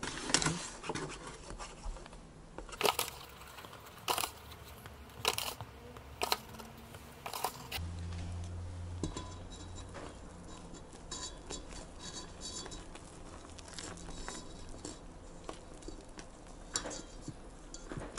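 Hand whisk clicking and scraping against a stainless steel bowl while stirring flour into egg yolks, a scatter of sharp taps. Later the taps turn fewer and softer as whipped egg whites are poured in and folded into the batter.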